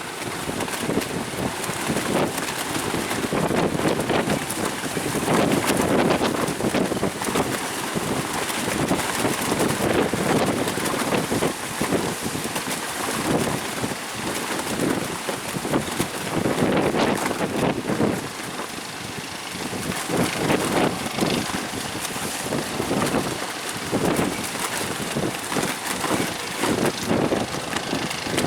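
Strong gusty wind buffeting the microphone, its rush swelling and easing every second or two, over the wash of high surf.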